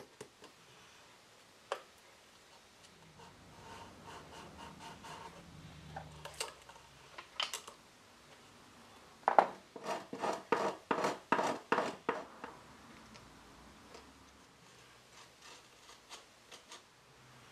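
Thin metal blade scraping against wood in a quick run of short strokes, with a few lighter single scrapes before it and faint ticks after.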